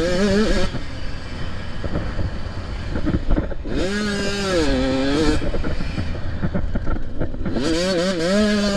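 85 cc two-stroke motocross bike engine revving hard in three spells, its high note wavering up and down as the throttle works, with a rushing noise and no clear engine note between the spells.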